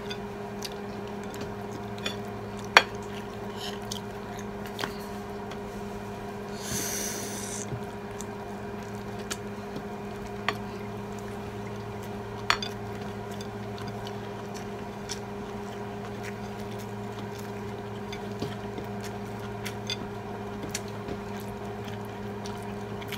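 Quiet eating at a table: a spoon and fork now and then clink against ceramic plates, the sharpest clinks about three and twelve seconds in. A brief hissing breath or slurp comes about seven seconds in, all over a steady electrical hum.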